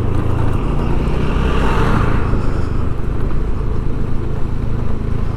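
Motor vehicle running along a road: a steady low engine hum with road and wind noise, swelling briefly about two seconds in.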